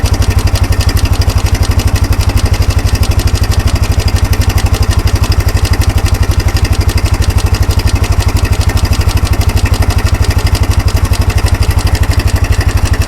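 Kawasaki 300 4x4 ATV's single-cylinder four-stroke engine idling steadily with an even, rapid pulse. It is loud and close, running again after its carburettor was cleaned.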